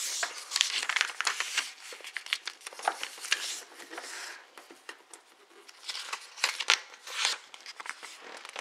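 Origami paper sliding and rustling as it is folded in half and fingers press and stroke along the fold to crease it, in many short irregular strokes, quieter for a moment about halfway through.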